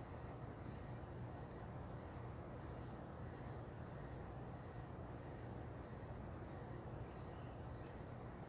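Insects chirping faintly in a high, pulsed rhythm about twice a second, over a steady low hum.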